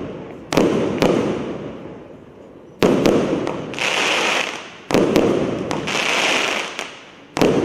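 48-shot compact fireworks cake with 26 mm tubes firing a volley: about five sharp shot reports a second or two apart, each trailing off in a rumble, with spells of hissing between the shots.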